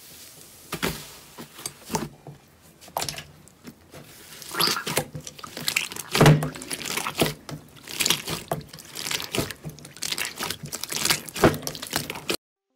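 Hands squeezing and kneading soft slime in a glass bowl: irregular wet squelches and sticky pops in uneven clusters, cutting off suddenly near the end.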